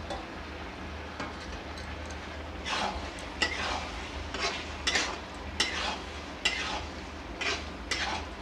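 Steel spatula stirring thick paneer masala in a steel kadai. From about three seconds in it scrapes and knocks against the pan, about nine strokes at uneven intervals of roughly half a second to a second.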